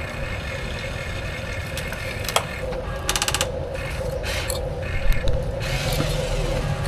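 Electric gear motors of 1:14 scale Huina RC construction machines whirring with a steady whine, over scattered clicks, a quick run of ticking about three seconds in, and a louder clatter about five seconds in.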